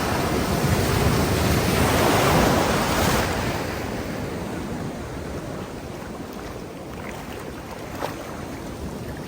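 An ocean wave surging in and breaking. Its rush swells to a peak about two seconds in, then eases into the steady wash of surf, with wind buffeting the microphone.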